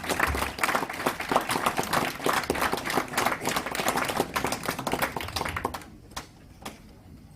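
Audience applauding, dying away about six seconds in, with a few last scattered claps.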